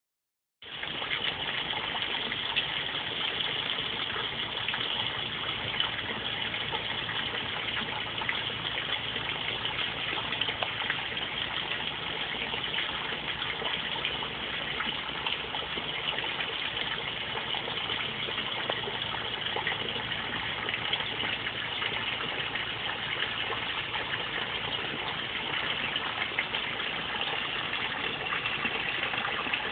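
Steady splashing and trickling of water falling into a small garden pond.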